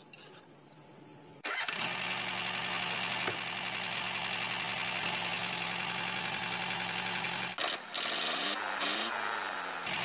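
A motor starts about a second and a half in and runs steadily. It cuts out briefly near eight seconds, then its pitch sweeps up and down.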